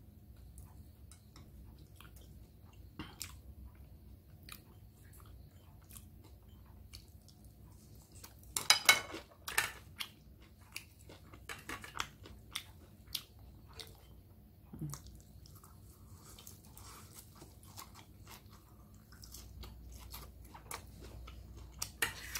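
Close-up chewing and crunching on a crispy pan-fried cilantro pancake, in scattered sharp crunches with a louder cluster about nine seconds in.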